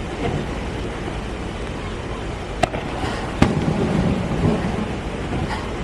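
Aerial fireworks display: two sharp bangs a little under a second apart near the middle, over a continuous low rumble of shells going off.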